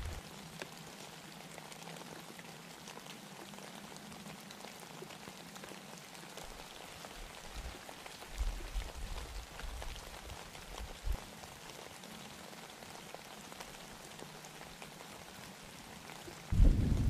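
Light freezing rain pattering steadily, with a few low knocks about eight to eleven seconds in and a louder low rumble starting near the end.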